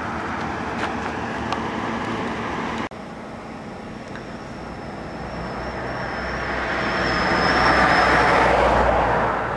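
Motor vehicle running, its noise growing louder over several seconds and easing off near the end, with a thin steady high whine over the loudest part; an abrupt break about three seconds in.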